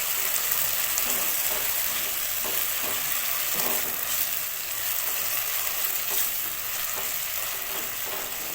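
Chopped tomatoes sizzling in hot oil in a pan as they are sautéed down until soft, with occasional scrapes and taps of a spoon stirring them.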